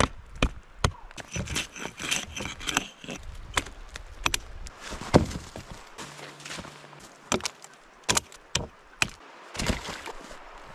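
Irregular sharp wooden knocks and chops, about a dozen, the loudest about five seconds in: a hatchet striking a dead spruce log, and spruce poles knocking as they are carried and laid down.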